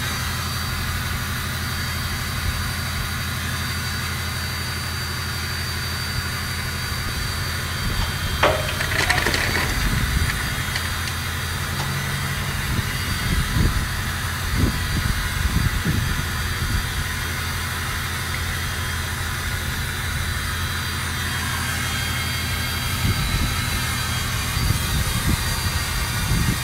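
An engine running steadily with an even low hum, with a few brief knocks and rustles between about eight and sixteen seconds in.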